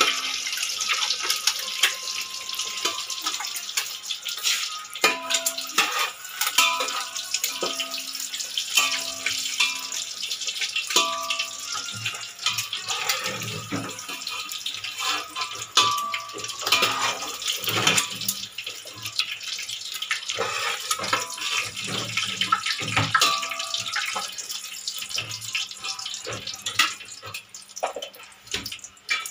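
Hot oil sizzling in an aluminium pot as halved-shell boiled eggs fry, with a metal spoon scraping and clicking against the pot as they are turned and lifted out.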